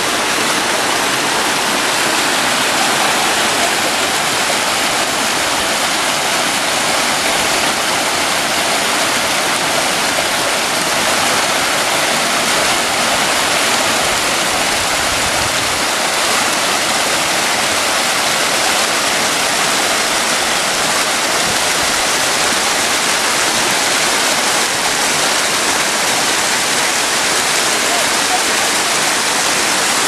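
Waterfall's rushing water, a loud steady hiss that doesn't let up.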